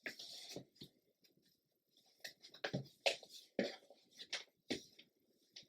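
Paper and card being handled while sewing a journal's binding: irregular rustles and light taps, several a second at times, with the loudest a little past the middle.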